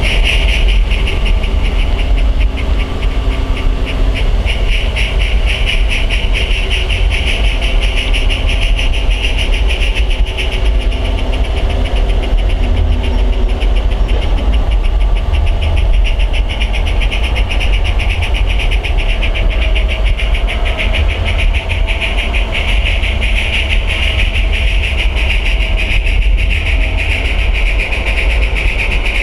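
Garden-scale model train running on its outdoor track: a steady rattling hum over a low rumble.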